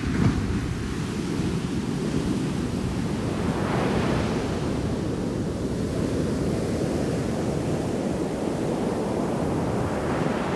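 Shore-break surf crashing and washing up the beach in a steady roar, with a wave breaking louder about four seconds in.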